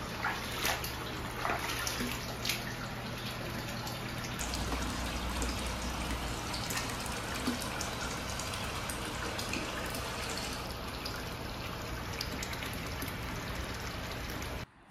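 Hot spring water pouring steadily from a spout into a ceramic pot bath and splashing on the surface, with a few sharper splashes in the first seconds. It cuts off suddenly just before the end.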